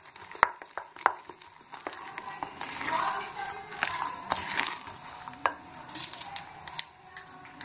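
A spatula stirring thick rava (semolina) and curd batter in a glass bowl: wet scraping and squelching, with sharp taps now and then as the spatula knocks against the glass.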